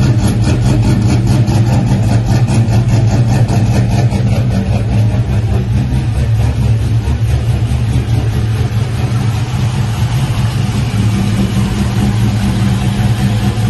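Pontiac GTO's LS1 5.7-litre V8, fitted with a Tick Performance Stage 2 torque cam, Kooks long-tube headers and Spintech stainless mufflers, idling steadily with an even, rhythmic pulse through the exhaust.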